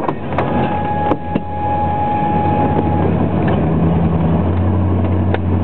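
Ford F-150 pickup engine running steadily under a slow off-road crawl, heard from inside the cab. Several sharp knocks come in the first second and a half and one more near the end, as the truck jolts over rough ground.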